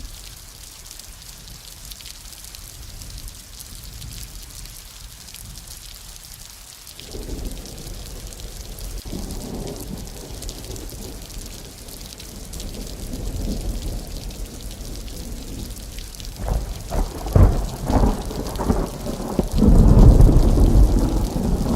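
Thunderstorm: steady rain hiss with thunder rumbling in about a third of the way through, a run of sharp thunder cracks near the end, then a loud, deep peal of thunder.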